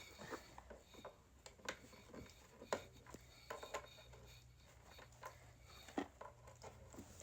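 Faint, scattered clicks and taps of a braided charging cable and its plastic connector ends being handled.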